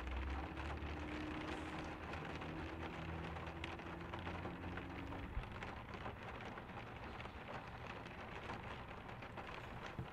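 Rain pattering steadily on a truck's windshield and roof, many small drop ticks over a soft hiss.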